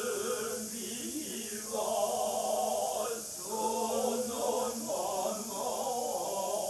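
Noh chorus (jiutai) of men's voices chanting utai in unison, in slow phrases of long, wavering held notes, accompanying a shimai dance.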